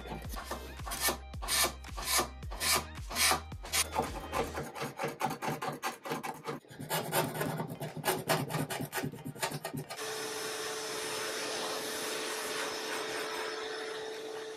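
Steel card scraper pulled in repeated strokes, about two a second, across the old finish of a wooden radio cabinet's veneer, a rasping scrape with each pull. About ten seconds in a vacuum cleaner starts, a steady rush of air with a held hum, as its hose sucks up the scrapings.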